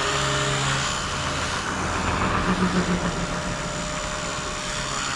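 Blade Fusion 180 electric R/C helicopter running in flight, with a steady rotor hum and a thin high motor whine. The canopy is vibrating against the frame with a buzz, which is a bunch of noise.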